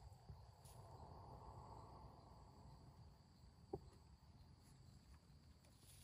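Near silence: faint outdoor background hiss with a thin steady high tone, and one soft click a little under four seconds in.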